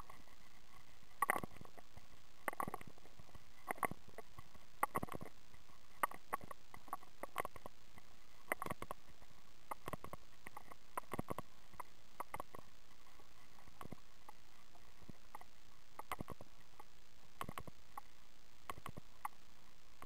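Footsteps on a stony dirt path, about one step a second, over a steady hiss; the steps grow fainter in the second half.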